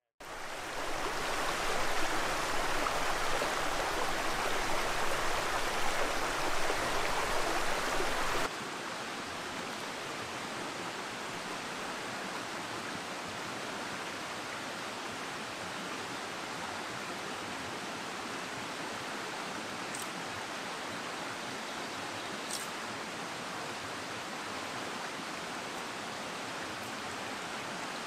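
Small rocky stream flowing over riffles, a steady rush of water. It fades in at the start and is louder for the first eight seconds or so, then drops abruptly to a softer steady flow.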